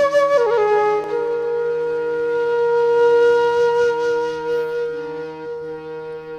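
Background music: a flute-like wind instrument plays a short sliding phrase, then holds one long note that fades near the end, over a steady drone.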